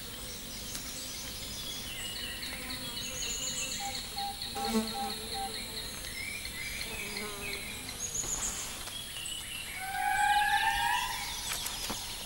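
Forest ambience: insects buzzing and trilling, with many short, high, rising bird chirps. A louder rising whistle comes about ten seconds in.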